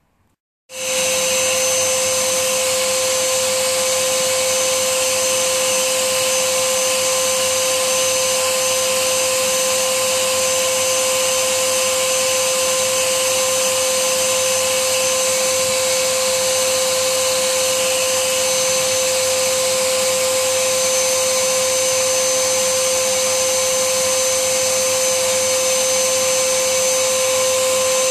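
Vacuum cleaner switched on about a second in, then running steadily: a rush of air with a constant tone over it. Its hose nozzle is held against a PS3 Super Slim console's casing, sucking dust from it.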